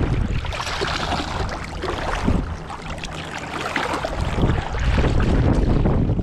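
Wind buffeting the microphone in a steady low rumble, with light clicks of handling mixed in; it drops away suddenly at the end.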